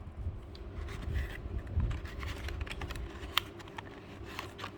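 Light clicks and handling noises as small computer parts are handled, with a few sharper clicks near the end.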